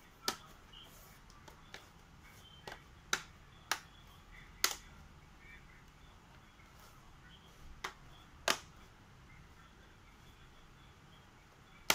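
Plastic bottom cover of an Acer Aspire 3 laptop being pressed down around its edges, its retaining clips snapping into place with sharp single clicks, about nine of them at uneven intervals.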